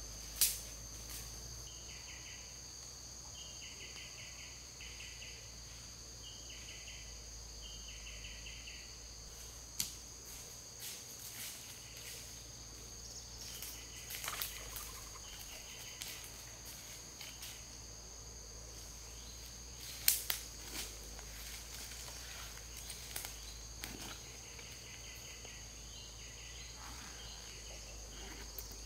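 Insects calling in woodland: a steady high-pitched drone throughout, with another insect's buzz switching on and off in short blocks for stretches. A few sharp crackles stand out, the loudest about twenty seconds in, fitting footsteps on dry leaf litter.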